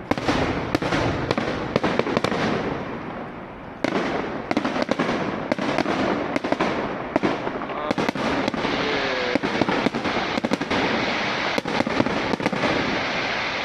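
Fireworks display: aerial shells bursting in a rapid, irregular series of sharp bangs, with a rumbling echo between them.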